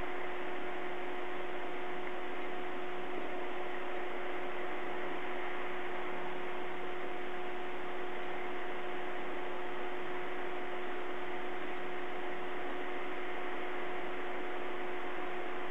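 Steady electrical hiss with a constant hum of several pitches from a live webcam's audio feed, unchanging throughout, with no bird calls.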